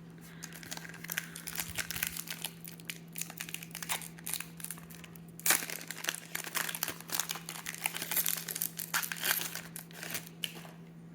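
Foil trading-card pack wrapper crinkling as it is handled and torn open, a dense, irregular crackle that stops shortly before the end.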